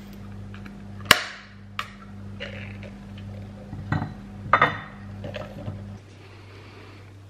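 Ring-pull tin of frankfurters being opened by hand: a sharp click about a second in, then a cluster of metallic cracks and clinks around four seconds in as the lid is peeled back. A steady low hum runs underneath and stops near the end.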